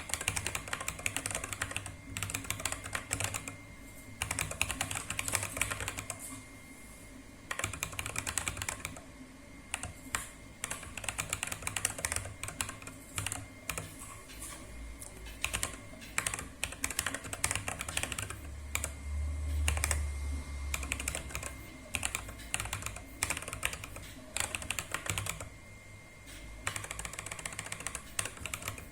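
Typing on a 30-key mechanical keyboard: fast runs of key clicks broken by short pauses. A low rumble comes in for a few seconds past the middle.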